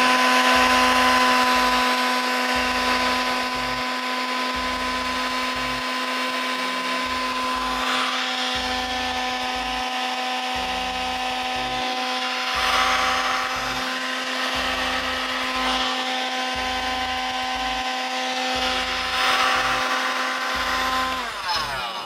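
Electric heat gun running steadily, its fan motor giving an even whine over a rush of hot air while shrinking heat-shrink tubing onto a soldered battery cable terminal. It is switched off near the end and the whine drops away.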